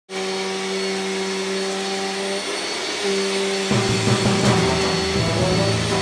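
Vacuum cleaner running: a steady motor whine over a rush of air, starting abruptly. A louder, deeper layer joins about two-thirds of the way through.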